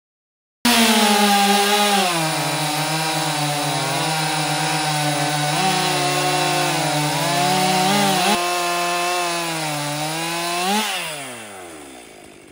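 Stihl MS 261 C two-stroke chainsaw at full throttle crosscutting a log, starting abruptly about half a second in, its engine pitch sagging as the chain bites into the wood. Near the end it rises briefly as the bar breaks through, then the throttle is released and the engine winds down.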